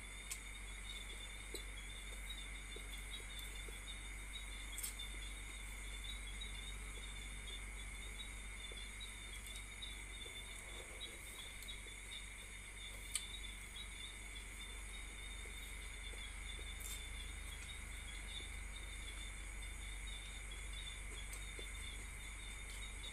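Crickets trilling steadily and unbroken, over a low hum. A few faint sharp clicks stand out at intervals.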